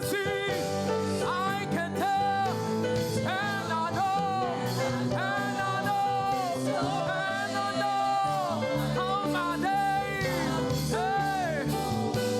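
Choir singing a gospel praise song with instrumental band accompaniment, in held, sliding vocal phrases over a steady bass line.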